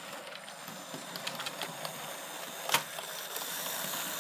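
Hornby OO-gauge GWR 0-4-0 model locomotive running along the layout track, its small DC motor whirring with light clicking from the wheels and track. It grows louder as the train nears, with one sharper click about two-thirds of the way through.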